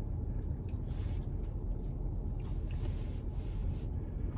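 Steady low rumble heard inside a car's cabin, with a few faint scattered clicks and rustles of food being handled in a paper takeout box.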